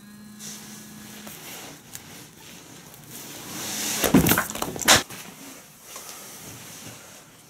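A mobile phone lying on a hard floor buzzes on vibrate for about a second. A rising swish follows, then two loud knocking, rustling handling noises about four and five seconds in as a hand grabs the phone.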